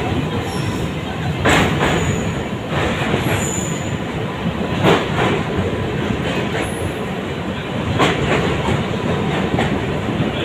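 A train running across a steel truss railway bridge, heard from inside the moving coach. The wheels on the rails make a steady rumbling clatter, with several louder clanks at irregular intervals.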